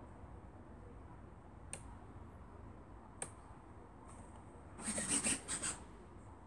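Two single sharp clicks, then about a second of rubbing and scratching near the end, over a steady low hum and a faint high-pitched whine.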